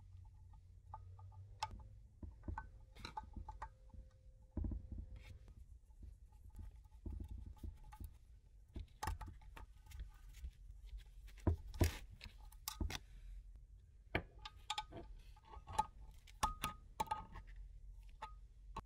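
Metal parts and hand tools clinking and knocking at irregular intervals, some knocks ringing briefly.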